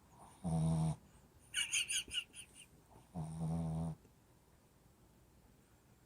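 A sleeping pet snoring: two snores about three seconds apart, each under a second long, with a clear pitched drone. Between them, about two seconds in, comes a short quick run of high chirping clicks.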